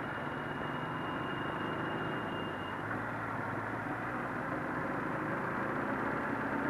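Suzuki GSX-R 750 motorcycle's inline-four engine running steadily at low speed in a slow group ride, other motorcycles' engines mixed in, heard from a helmet camera. It gets a little louder near the end.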